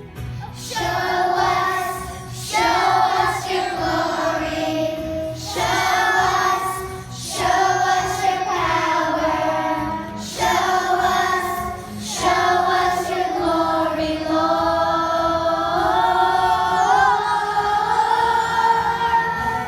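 Singing with musical accompaniment: sung phrases a second or two long with short breaks between them, over a steady low backing, with a long held phrase near the end.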